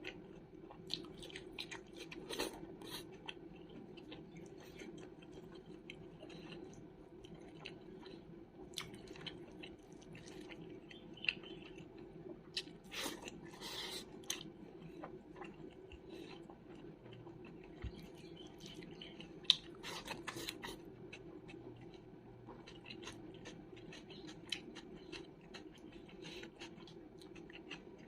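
A person chewing food close to the microphone, with irregular wet mouth clicks and smacks. A faint steady hum runs underneath.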